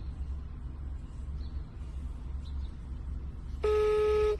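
Phone ringback tone heard over speakerphone as an outgoing call rings: one steady buzzing tone, under a second long, sounds about three and a half seconds in over a low background hum.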